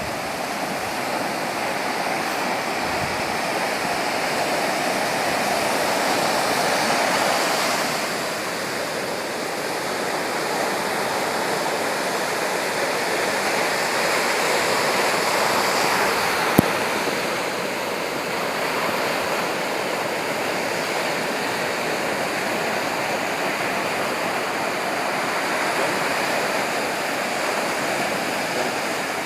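Sea waves washing in as a steady rush of water, swelling twice and easing off, with a single sharp click a little over halfway through.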